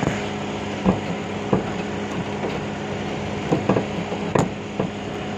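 Toyota RAV4 Hybrid left running, a steady hum, with a few light clicks and knocks from hands fumbling at the bonnet.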